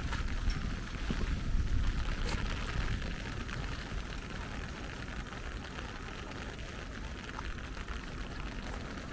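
Outdoor ambience in light rain: a steady hiss of rain, with a low rumble that is strongest over the first few seconds and then eases.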